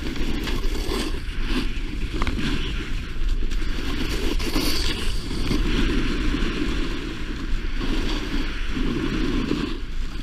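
Snowboard sliding and carving over groomed snow, a steady scraping hiss, with wind rushing over the microphone at speed.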